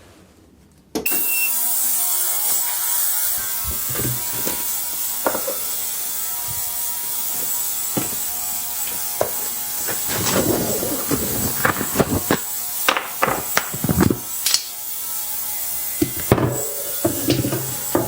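Ultrasonic parts cleaner switched on about a second in, giving a loud steady hissing buzz, with scattered clicks and knocks of parts being handled over it in the second half.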